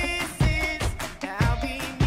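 Pop music with a steady beat, playing as a soundtrack.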